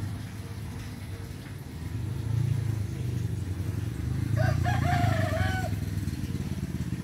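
A rooster crows once, a call of about a second and a half starting a little past four seconds in. Under it runs a steady low rumble that swells about two seconds in.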